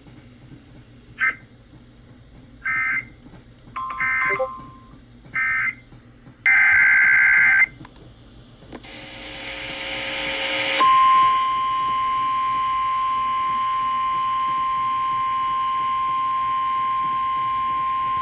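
Emergency Alert System weather-radio alert signalling. Several short bursts and one longer burst of screeching digital data tones make up the SAME header. Then, about eleven seconds in, a single steady high tone begins: the NOAA Weather Radio 1050 Hz warning alarm that comes before a voice warning.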